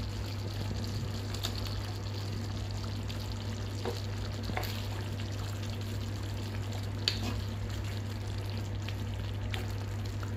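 Thick creamy beef sauce simmering in a frying pan as sliced button mushrooms go in, over a steady low hum. A few short sharp clicks sound through it, the loudest about seven seconds in.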